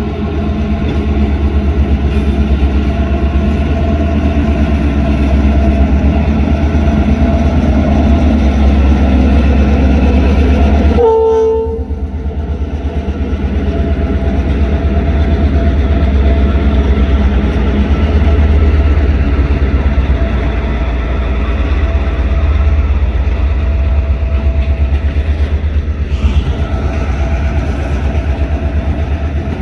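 Diesel locomotive engines running steadily with a heavy low rumble and a steady hum. About a third of the way in, the rumble drops out briefly and a short pitched tone sounds.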